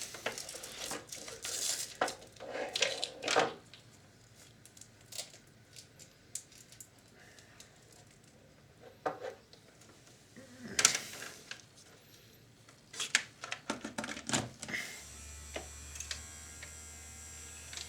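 Clicks and knocks of hands working the tape mechanism of a Sharp VC-573E video recorder. About fifteen seconds in, a small electric motor in the mechanism starts running steadily with a low hum and a thin whine, driving it to unload the tape.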